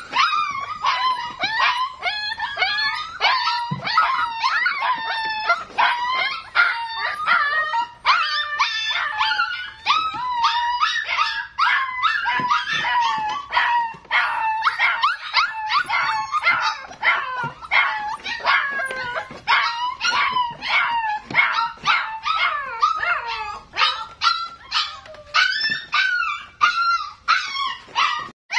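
Several young puppies crying without a break, short high-pitched calls coming several a second and overlapping one another.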